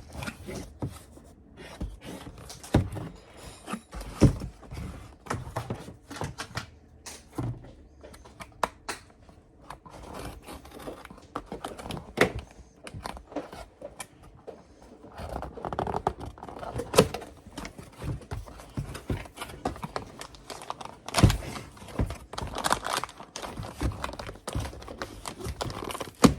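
A cardboard box of parts and packaging being opened and rummaged through by hand: scattered knocks and thunks with rustling and crinkling of packaging between them.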